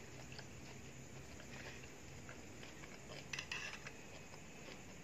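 Quiet chewing of crunchy stir-fried vegetables, with a metal spoon scraping and clicking against a plastic plate a little over three seconds in.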